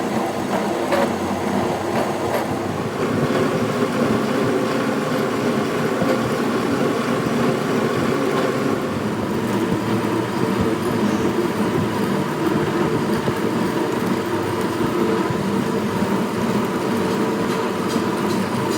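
A machine running steadily with a constant hum.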